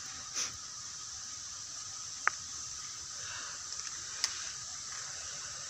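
Fingers digging and scraping in soil and dry leaf litter around a wild mushroom: soft rustles and two small sharp clicks, over a steady high hiss.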